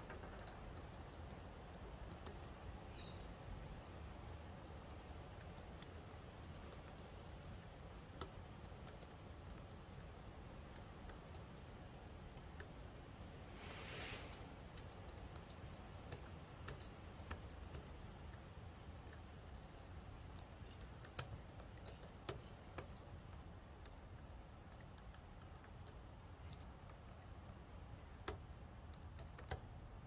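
Faint, scattered small metal clicks of a lock pick working the seven push pins of a Van Lock padlock, with a brief louder scrape about halfway through.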